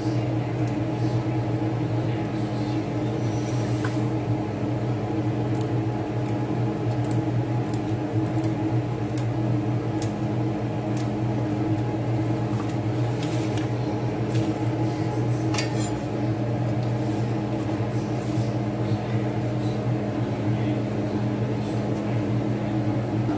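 Steady electric motor hum, even and unchanging, with faint scattered snaps and rustles of leafy greens being picked off their stems by hand.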